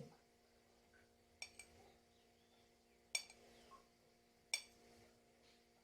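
A spoon clinking sharply against small empada tins a few times, spaced a second or so apart, while filling is spooned in. A faint steady hum lies underneath.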